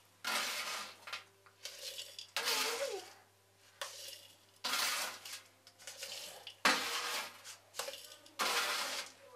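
Kitchen dishes and utensils being handled: about six separate scraping, rattling strokes, each lasting under a second, with short pauses between them.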